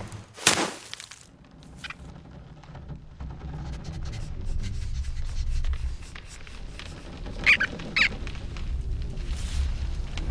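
Animated-film sound effects: a sharp hit about half a second in, then a low rumble that slowly grows louder. Two short high squeaks from the cartoon rodents come about three quarters of the way through.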